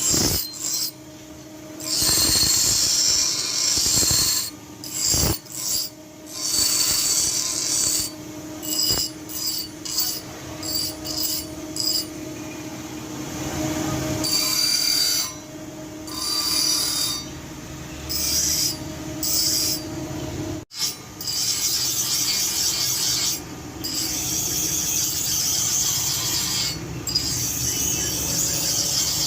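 A forged steel cobbler's blade being filed by hand: rasping strokes in uneven runs, some long and drawn out, others short and quick, with pauses between, over a steady low hum.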